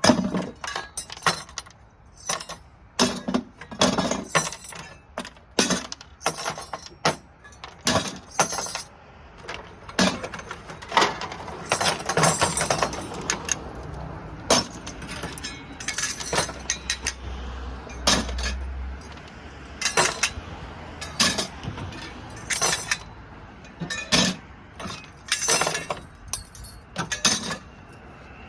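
Small brass and steel parts from dismantled light sockets clinking against each other as they are handled, dropped and sorted into piles and a bucket, in quick irregular clicks throughout. A brief low rumble about two-thirds of the way through.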